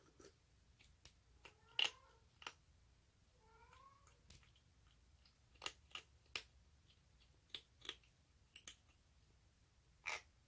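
Orange tabby kitten eating hungrily: scattered sharp clicks of chewing and food, with two short, slightly rising mewing calls about two and four seconds in. This is the odd sound the kitten makes while it eats.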